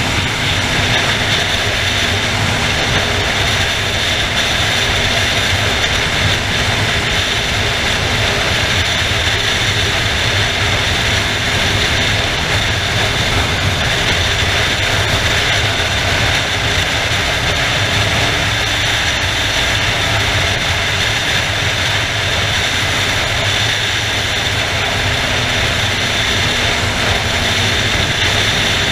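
Motorcycle cruising at steady freeway speed: a constant rush of wind over the microphone mixed with the engine's drone and tyre noise, without change in pace.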